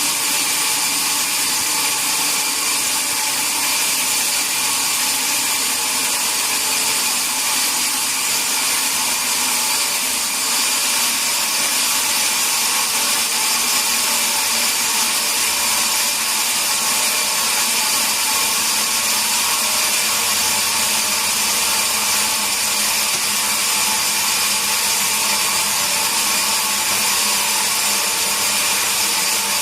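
Sawmill saw cutting through a red mahogany log: a steady, even sawing noise with a high whine, with no break in the cut.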